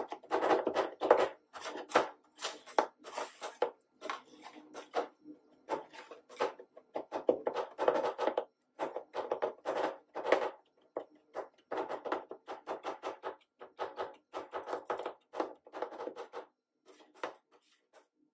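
Two steel spatulas chopping guava into ice-cream base on a frozen stainless-steel cold plate: bursts of quick metallic taps with short pauses, thinning to a few scrapes near the end as the mix is spread flat.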